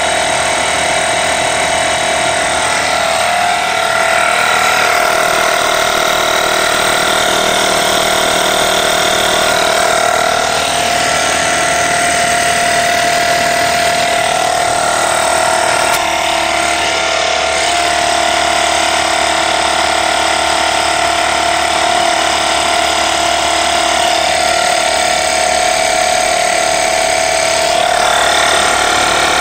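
Air compressor running steadily, filling a motorcycle tire to force its bead to seat on the rim.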